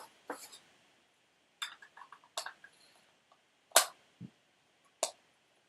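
Irregular short clicks and knocks of a battery cable, its lug and tools being handled on a work surface, the loudest sharp knock about two-thirds of the way through and a duller thump just after it.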